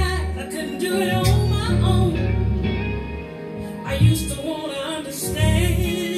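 A song playing: a singing voice over music with deep bass notes and a few sharp beats.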